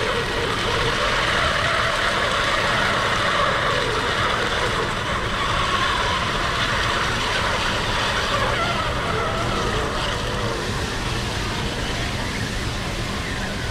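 Steady hiss of steam escaping from a heated iron shrimp-cracker press as its lever holds the plates clamped on the batter.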